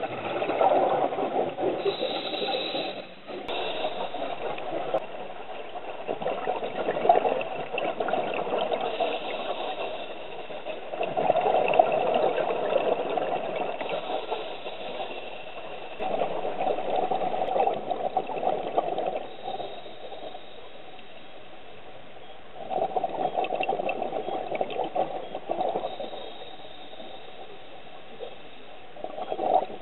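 Scuba diver's exhaled bubbles from the regulator, gurgling and rumbling in repeated bursts of a few seconds with quieter gaps between, heard underwater through the camera.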